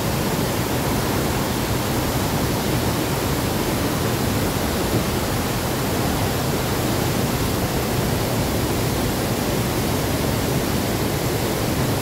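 Steady rush of a large waterfall in heavy flow, swollen with muddy rain runoff.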